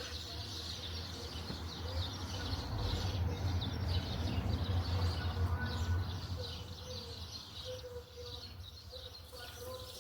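Many small birds chirping continuously in quick repeated notes, over a low hum that swells for a few seconds in the middle.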